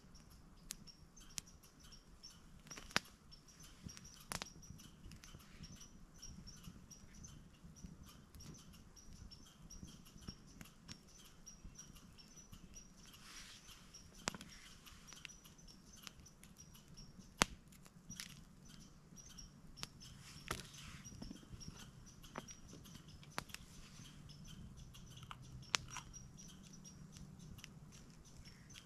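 Soft clicks and taps of food being handled and pushed onto carved wooden skewers, with a few sharper clicks scattered through, over continuous high-pitched chirping.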